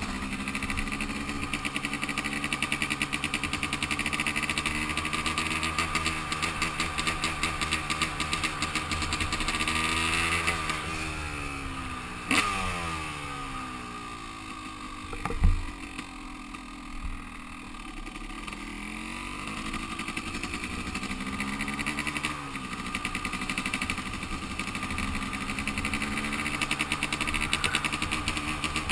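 Yamaha YZ250 two-stroke dirt bike engine running while ridden. Its pitch falls as the bike slows about ten seconds in, with two sharp thumps during the slow stretch, then it picks up again and runs steadily through the second half.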